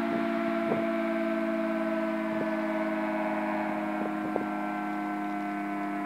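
Two-headed electromechanical siren on a pole sounding a steady test tone: a held chord of several notes whose pitch sags slightly lower.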